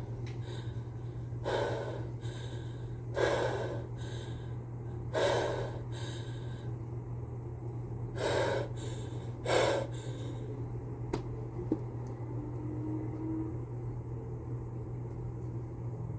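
A person with a cold taking five sharp, gasping breaths a few seconds apart: the catching breaths that build up to a sneeze. A steady low hum runs underneath.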